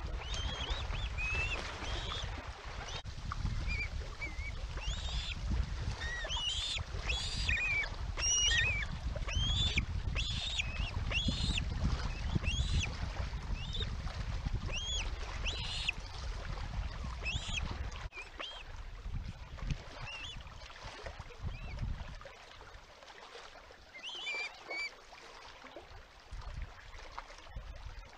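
Ospreys calling on the nest: a run of short, high, whistled chirps, coming thickly in the first half and more sparsely later. A low rumble runs underneath and falls away about two-thirds of the way through.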